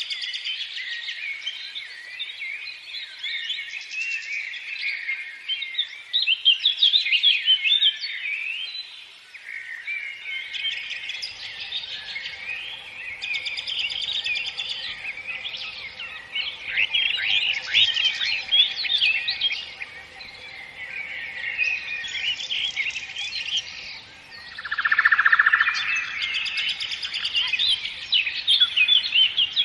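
A dense chorus of many small songbirds chirping and twittering at once, overlapping without a pause, swelling and easing every few seconds.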